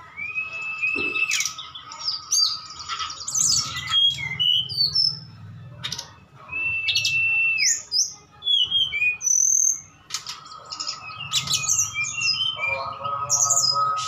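Caged SRDC Bali and tledekan gunung songbirds singing against each other in a duel: clear held whistles that slide at the ends, mixed with quick high chirps and fast trills. Near the end a lower, steadier run of notes joins in.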